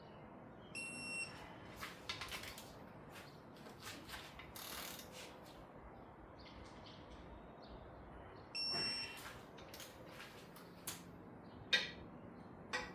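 Digital torque-angle wrench beeping twice, about a second in and again about nine seconds in, each a short electronic tone signalling that an LS main cap bolt has reached its target angle (80 degrees on the inner bolts). Between the beeps come scattered ratchet clicks and metal-on-metal knocks from the wrench on the bolts.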